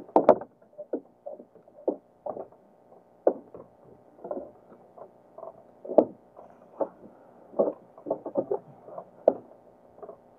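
Small waves lapping and slapping irregularly against the hull of a small boat drifting on a calm sea, with a few sharper knocks.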